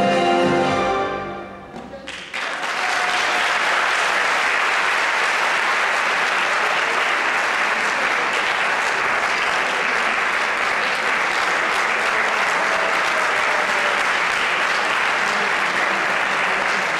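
The last notes of tango music die away, then about two seconds in an audience breaks into steady applause that keeps going.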